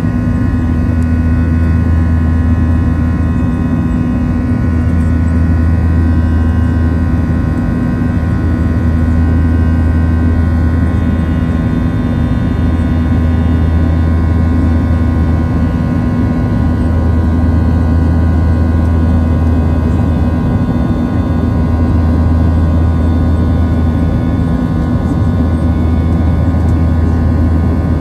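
Steady cabin drone of a Boeing 737-700's CFM56-7B jet engines, heard from inside the passenger cabin: a deep hum with several steady whining tones above it, unchanging throughout.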